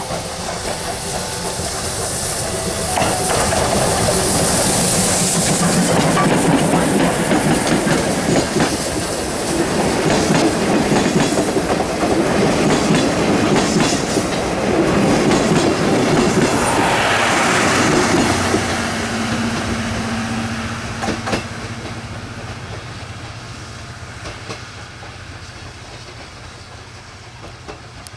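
C58 steam locomotive and its train of 12-series passenger coaches passing close by: the engine working under heavy smoke, then the coaches' wheels clattering over the rail joints as they go by. The sound builds as the train arrives, is loudest for most of the middle, and fades away as the train recedes.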